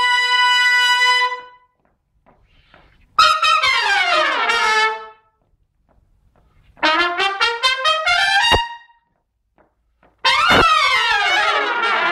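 Trumpet section playing together in harmony: a held chord that stops about a second in, then three short phrases with pauses between them. The first and last phrases slide down in pitch, the middle one climbs and stops sharply, and a sharp hit opens the last phrase.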